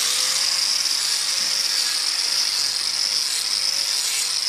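Electric angle grinder with an abrasive disc running at full speed, grinding down a cow's hoof to trim it. It gives a steady high whine over a grinding hiss.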